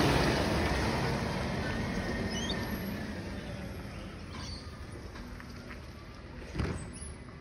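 Garbage truck driving away, its engine and tyre noise fading steadily as it recedes. A sharp knock comes near the end.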